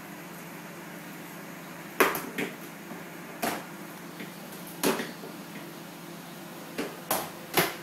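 A baby knocking a metal spoon against a plastic high-chair tray: about seven sharp, irregular clacks, starting about two seconds in.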